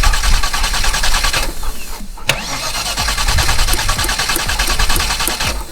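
Holden VT Commodore's 304 V8 cranking on the starter without catching, in two bursts separated by a short break with a sharp click as it re-engages. A crank-no-start that the owner takes for a fuel supply problem, perhaps a fouled pump or sticky injectors.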